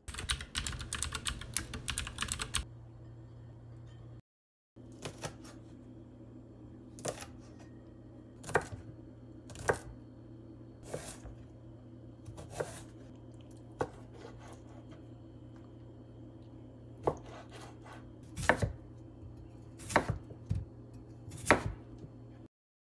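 Dry rice grains rattling into a stainless steel pot for about two seconds. Then a chef's knife slicing ginger and potato on a wooden cutting board: single sharp knocks of the blade hitting the board about every second or so, over a steady low hum.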